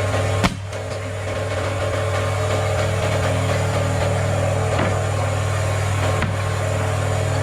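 Woodworking machinery humming steadily, with a sharp knock of wood about half a second in and a few fainter knocks later.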